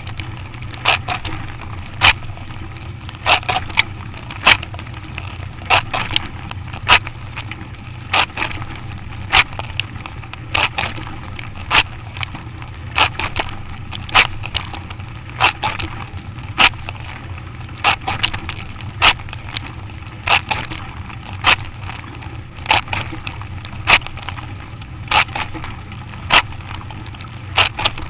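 A machine running with a steady low hum, punctuated by sharp cracking clacks about once a second, unevenly spaced and sometimes doubled.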